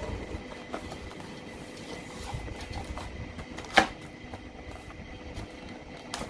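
Handling noises as the wing is fitted to the foam RC model plane's fuselage and its multi-connector plugged in: light scraping and small clicks, with one sharp click about two-thirds of the way through.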